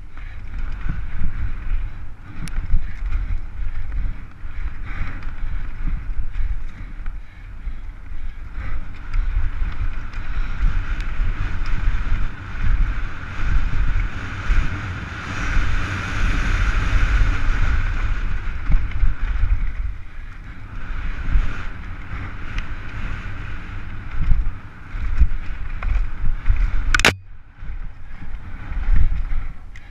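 Downhill mountain bike at race speed, heard from a helmet-mounted camera: wind buffeting the microphone with a heavy low rumble, and tyres hissing and rattling over dry dirt, rocks and roots, the tyre hiss swelling midway. One sharp knock near the end.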